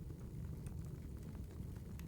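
Wood fire crackling: scattered sharp pops and snaps over a low steady rumble.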